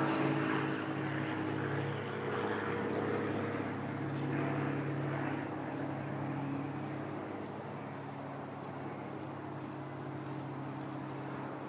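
A motor's steady drone with an even pitch, slowly getting quieter.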